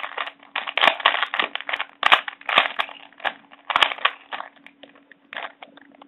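Plastic Rubik's cube layers being turned by hand in quick succession: a rapid, irregular run of clacks and rattles of plastic on plastic. The turns are busiest in the first four seconds and sparser near the end.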